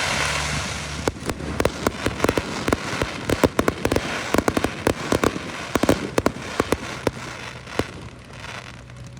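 Fireworks going off: a run of many sharp pops and crackles over a fading hiss, densest in the middle and thinning out near the end.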